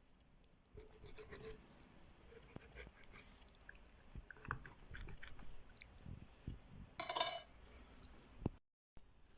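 Kitchen food-preparation handling sounds: scattered small clicks, knocks and squelchy touches, with a brief louder crinkling rustle about seven seconds in.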